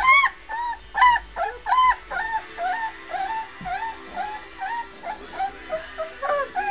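A 21-day-old white Swiss shepherd puppy crying: a run of short, high, arched whines, about two a second, loudest in the first two seconds.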